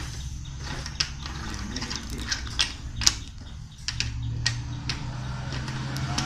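Plastic bottle caps tapped down and moved on a wooden checkerboard: irregular sharp clicks, about two a second.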